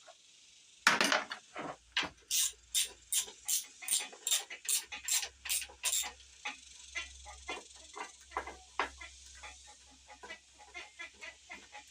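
Ratchet wrench clicking in even strokes, about three a second, as it is swung back and forth on a valve cover hold-down bolt, with a loud knock about a second in. The clicks turn fainter and quicker after about six seconds.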